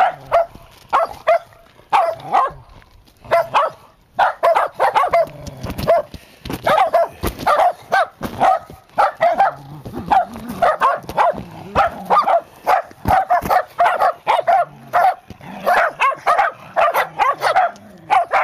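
Shetland sheepdog barking excitedly: rapid, sharp yapping barks in quick runs, several a second, with a short lull a few seconds in.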